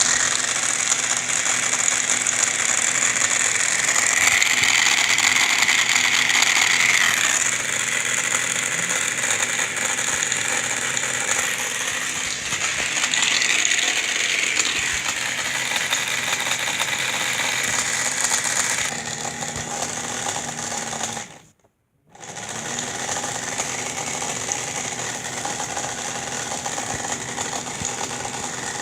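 Repaired air conditioner running with its cover off: the compressor and fast blower fan make a loud, steady mechanical whir with a rattle. The sound cuts out for about half a second roughly two-thirds of the way through, then carries on slightly quieter.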